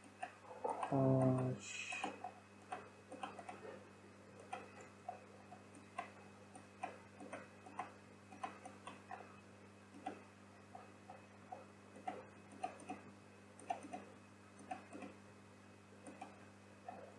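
Computer mouse clicks, scroll-wheel ticks and keyboard key presses tapping irregularly, about two a second, during 3D modelling work. A brief low hum and a short breathy hiss sound about a second in, the loudest moment.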